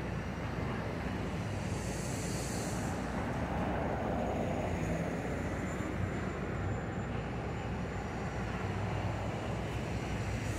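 Steady rumble of street traffic with wind on the microphone, and a brief hiss about two seconds in.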